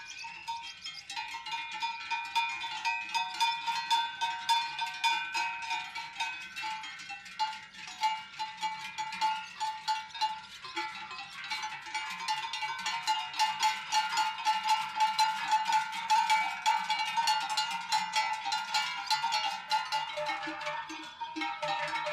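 Large cowbells on a herd of cows walking past, clanking and ringing continuously in an uneven jangle of many bells, growing louder from about halfway through as the cows come close.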